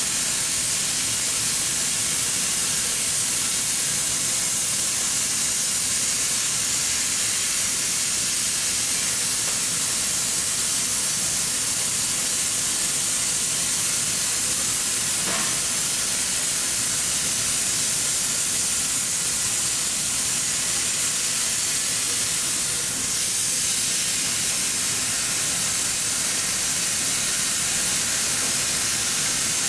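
Steady, even hiss of welding in progress.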